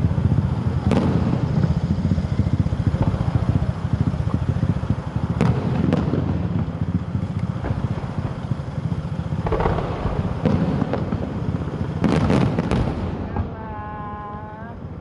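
Fireworks going off: separate sharp bangs about a second in, twice around five to six seconds, near ten seconds and a quick cluster near the end, over a steady low rumble.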